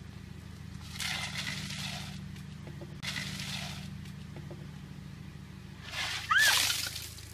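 Ice water sloshing as it is poured from a pitcher into a plastic bucket, twice. Near the end comes the louder splash of the bucket of ice water dumped over a person's head, with a short high cry. A steady low hum runs underneath.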